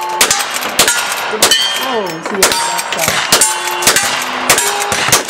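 Rapid string of rifle shots, roughly two a second, each followed by the ringing clang of a struck steel plate target.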